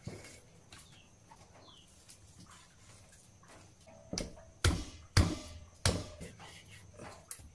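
Three sharp chops about two-thirds of a second apart, a long butcher's knife hacking through a singed carcass's neck and striking the cutting board, with lighter taps and knife scraping before them.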